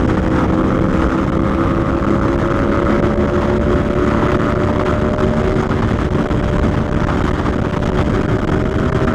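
Aprilia Tuono V4 1100 Factory's V4 engine pulling steadily at speed, its pitch creeping slowly upward, under a heavy low rush of wind.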